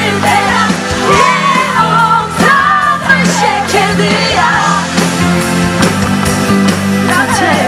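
Live pop song through a concert PA: a woman sings lead vocals over a band with bass guitar, keyboards and drums.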